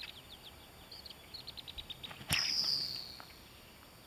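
Seat-belt sling swung in a figure-8 and released: a run of quick faint chirps that speed up, then a sharp snap a little past two seconds in as the aerophonic whistling golf ball is let go. The ball's high whistle follows, falling slightly in pitch and fading out within about a second as it flies off.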